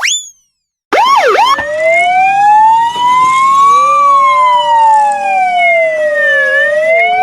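Police-style electronic siren. A brief rising whoop is cut off, then after a short silence the siren comes in with a few quick yelping sweeps and settles into a slow wail that rises, falls and starts to rise again.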